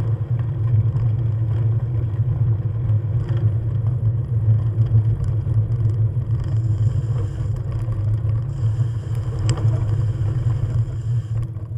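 Steady low engine rumble of a small vehicle rolling along a gravel road. A faint hiss joins about six seconds in.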